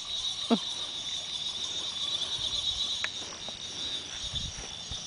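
Evening insect chorus: a steady, high-pitched chirring. About half a second in there is a short downward-sliding sound.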